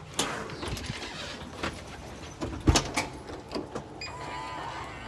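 Handling noise from a handheld phone being moved about: scattered knocks and clicks over a low steady rumble, with one louder thump a little past the middle.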